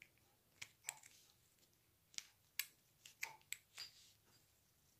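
Faint, scattered light clicks and taps, about eight over a few seconds, from handling the metal shower hose's threaded nut and fittings while an O-ring is seated.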